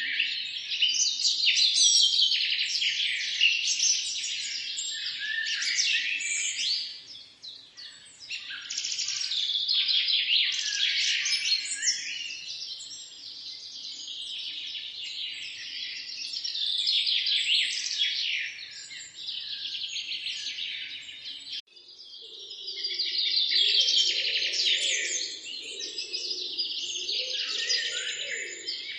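Many small songbirds chirping and trilling at once, a dense, continuous chorus. About 22 s in the sound cuts briefly, then resumes with a lower, wavering sound underneath the chirping.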